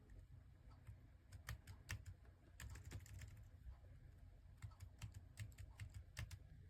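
Keys of a PINKCAT wireless numeric keypad with round keycaps being pressed: faint, irregular soft clicks, several a second.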